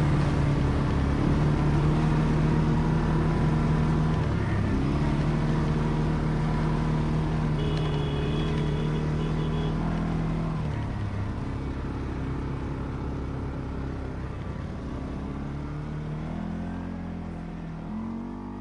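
ATV engine running at a steady pitch, dipping briefly about four seconds in. In the second half the pitch wavers with the throttle, rising in short revs near the end as the sound gradually fades.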